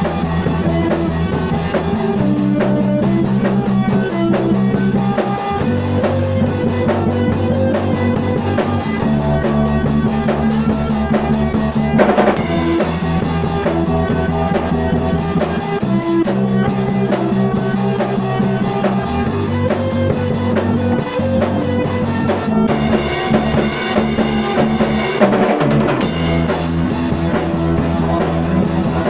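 Instrumental band music: a drum kit with bass drum and snare keeping a steady beat under a bass line that moves to a new note every few seconds, with guitar, and no singing.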